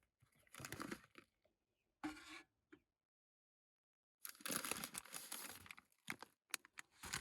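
Food packaging crinkling and tearing open, in several short spells of rustling.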